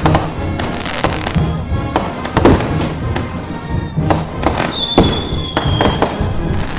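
Festival music with firecrackers going off over it, sharp bangs at irregular intervals. A short high whistle sounds for about a second near the middle.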